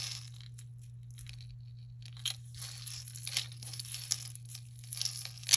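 A beaded necklace on a metal chain being handled and dragged over a padded mat, its beads and links clicking and rustling in scattered small bursts, with a sharper click near the end.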